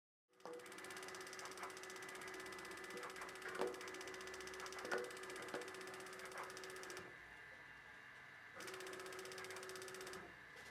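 Audion AHM 380R flow-wrapping machine running as biscuits are fed in: a steady mechanical whirr with a humming tone and scattered clicks from the mechanism. The running sound drops away for about a second and a half partway through and again briefly near the end, the machine pausing where there is a gap in the biscuit feed (no product, no bag).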